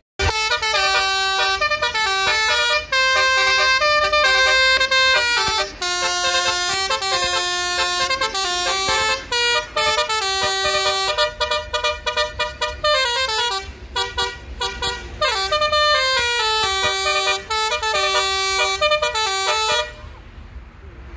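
Basuri multi-tone vehicle horns playing a melody: long held notes alternate with quick runs of short notes and a few sliding notes, and the horns stop about 20 seconds in.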